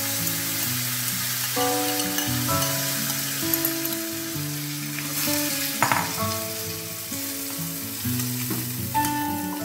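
Hot coconut oil sizzling in a steel pan as ground coconut paste is dropped in onto spluttered mustard seeds and curry leaves, with a brief clatter of the pan twice. Soft background music with slow, stepping notes plays under it.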